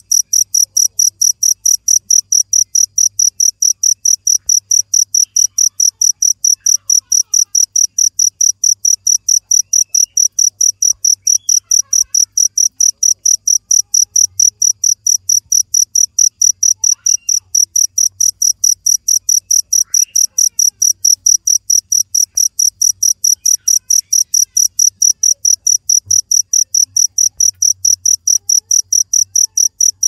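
Cricket chirping loudly and without pause, a rapid, even train of high-pitched chirps at about three a second.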